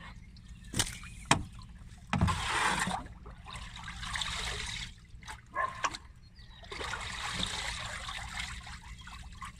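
Wooden stick stirring a tub of steeping nettle fertiliser: the liquid sloshes and trickles in three spells as the soggy plant matter is churned and lifted, with two sharp knocks about a second in.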